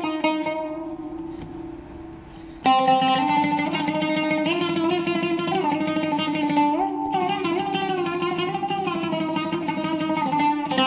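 Solo oud with a cedar soundboard being played: a phrase rings out and fades over the first couple of seconds, then the playing comes back in suddenly with fast repeated plucking, with an upward slide on a note past the middle.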